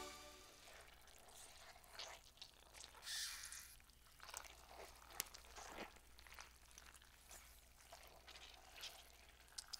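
Near silence, with faint, scattered wet drips and clicks.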